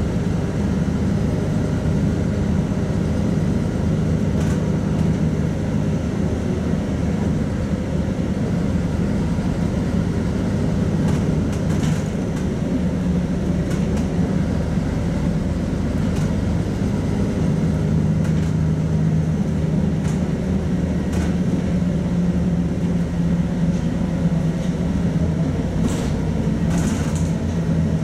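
Inside a LiAZ-5292 low-floor city bus under way: a steady engine drone with road and tyre noise, and a few short clicks from the body.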